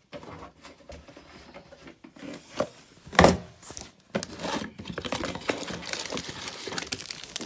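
Bosch WAN28281GB front-loading washing machine tumbling its load: irregular swishing and rustling of the laundry in the drum, with a loud thud about three seconds in.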